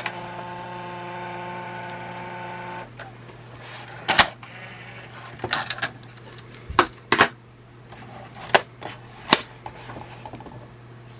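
Compact VHS camcorder's cassette eject mechanism: a small motor whirs steadily for about three seconds and stops, followed by a string of sharp plastic clicks and knocks as the VHS-C tape compartment is opened and the cassette handled.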